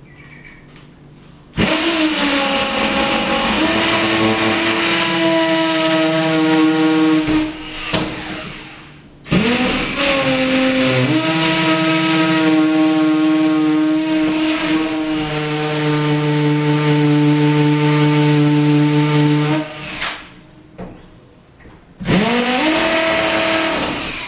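Cordless drill with a 1/8-inch (2 mm) bit boring into the mortar joints around a glass block. There are three long runs, each spinning up quickly to a steady whine, with short pauses between them.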